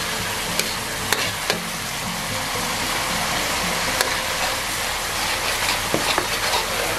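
Chili sauce sizzling as it cooks down in a wok to a sticky glaze, stirred with a metal spatula. A few sharp clicks as the spatula knocks and scrapes the pan.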